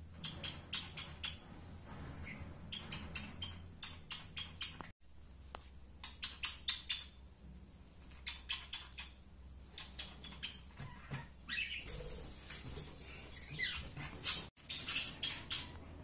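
Budgerigar making short, rapid runs of sharp clicks, a few clicks to a run at about five a second, repeated again and again with a few brief chirps in between. The clicking is a sound it has learned to copy.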